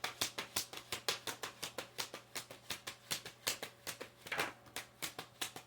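A tarot deck being shuffled by hand: a rapid, even run of soft card clicks, about seven a second, with a couple of longer brushing swishes partway through.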